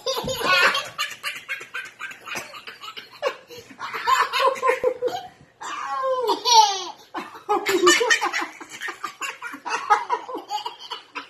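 Toddler laughing hard in repeated fits of short bursts, with high squealing glides a little past halfway.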